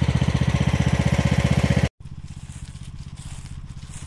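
Kawasaki V-twin mower engine running close by with a steady, rapid pulse. Just before two seconds in, the sound breaks off for an instant and the engine carries on much quieter.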